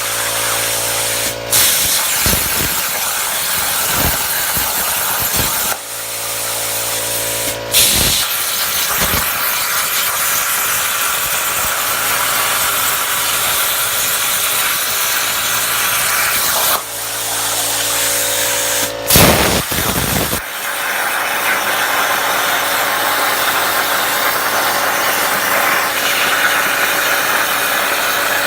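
Plasma cutter torch cutting on a Langmuir Crossfire CNC table: a loud, steady hiss that stops and restarts briefly several times. At times a low machine hum runs underneath.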